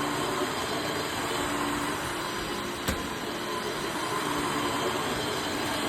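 Dyson DC18 bagless upright vacuum cleaner running steadily while vacuuming, with a single sharp click about three seconds in.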